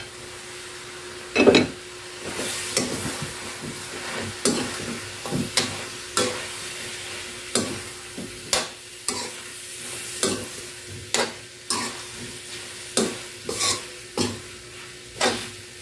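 Metal spoon stirring and scraping chunks of chicken, potato and saba banana around a wok, with irregular clinks against the pan over a low sizzle. One louder knock of spoon on pan about a second and a half in.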